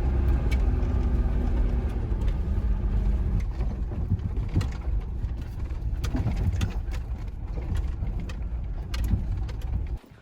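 Low steady rumble with a droning tone over the first few seconds and scattered clicks and knocks; it cuts off suddenly near the end.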